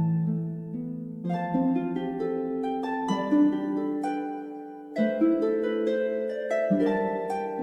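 Background music: a gentle melody of plucked, harp-like notes over changing chords.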